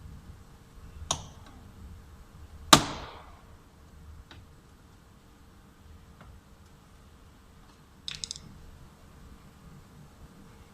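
Sharp clicks and knocks of plastic door-trim parts and hand tools being handled: a light click about a second in, one loud snap a little under three seconds in, and a quick rattle of clicks about eight seconds in.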